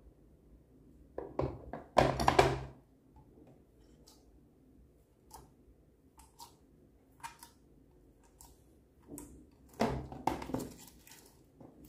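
Hands pressing, poking and squeezing a bowl of glittery blue bead-filled slime, making squishing and crackling sounds. It comes in two louder bursts, about one and a half seconds in and near ten seconds, with small scattered clicks between them.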